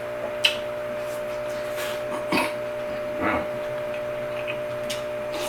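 Eating sounds from a bowl of soup: a few separate short clicks and mouth sounds, a couple of seconds apart, over a steady background hum.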